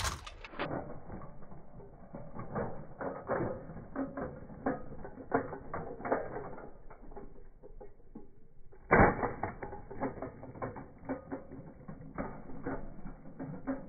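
Slowed-down, low-pitched sound of a big-wheeled kick scooter rolling over rough asphalt: a steady stream of irregular clicks and rattles. About nine seconds in comes one loud thud, the scooter landing after jumping a speed bump.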